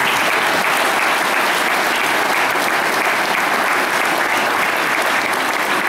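Congregation applauding, many hands clapping in a steady, even patter.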